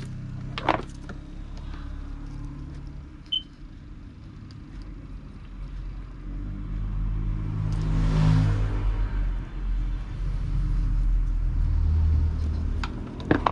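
Motor vehicle engines running nearby, a steady low hum that swells twice, loudest about eight seconds in and again near the end. There is a sharp click about a second in.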